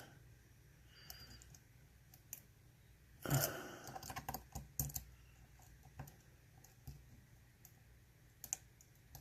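Faint, scattered small clicks of a pick working the pin stacks of a Mul-T-Lock Interactive dimple padlock while it is held under tension, with one brief louder noise about three seconds in.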